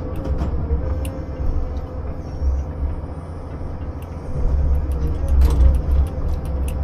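Heavy machinery running: a deep engine rumble with a steady whine over it and scattered sharp knocks and cracks, growing louder a little past halfway.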